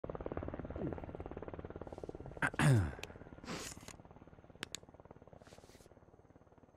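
Fast, even pulsing of helicopter rotors that fades away gradually. A few short falling sweeps and several sharp clicks sound over it in the middle.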